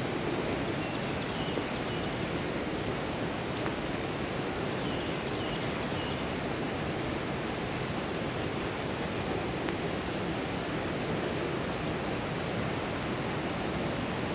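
Steady, even rush of fast-flowing water from the Cumberland River below the falls.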